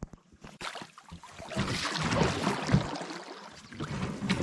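A canoe being paddled: water swishing and splashing around the paddles and the hull.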